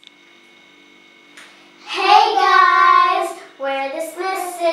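Young girls' voices in a sing-song, drawn-out greeting: a long held call starting about two seconds in, then more sing-song talk near the end.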